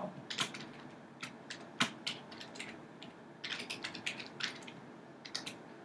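Typing on a computer keyboard: scattered single keystrokes and short runs of clicks, with a quicker run of several keys about three and a half seconds in.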